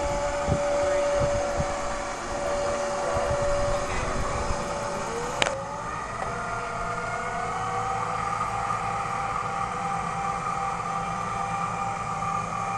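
Electric-converted Yamaha 9.9 outboard (a 2 hp three-phase motor on a frequency drive) running with a steady whine. After a sharp click about five seconds in, the whine comes back, rises in pitch, holds, and dips slightly near the end, as the motor's speed changes.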